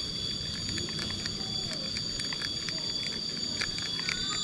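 Steady high-pitched chorus of insects in the riverside trees, several shrill tones held without a break, over a low rushing haze of the river, with scattered faint ticks.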